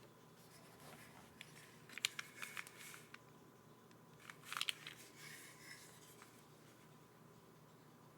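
Mechanical keyboard keystrokes: HMX Sunset Gleam switches soldered plateless under Keykobo Alhambra keycaps, clacking faintly in two short flurries, one about two seconds in and one about four and a half seconds in, with a few single key clicks between.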